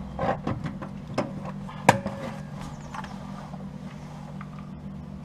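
Metal clicks and clanks of locking pliers being set and clamped onto the steel front wing lip against the inner wheel arch, closing up the seam, with one sharp snap about two seconds in. A steady low hum runs underneath.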